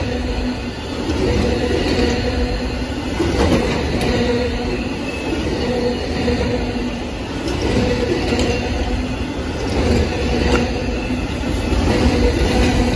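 Amtrak Auto Train autorack cars rolling steadily past on the rails: a continuous wheel-on-rail rumble with a hum that swells and fades and a few sharp clicks.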